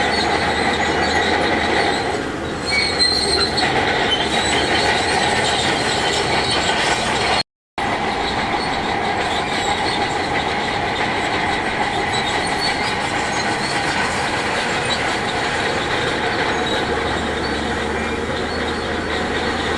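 Heavy earthmoving machinery working rock, with engine noise and a steady high metallic squeal and clatter. The sound cuts out for a moment about seven and a half seconds in.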